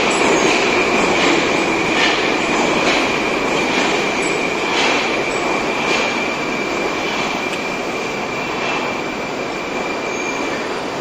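Moscow metro train pulling into the station and braking to a stop: a steady rumble that slowly dies down, a high, steady wheel squeal that stops shortly before the end, and a knock from the wheels every second or two.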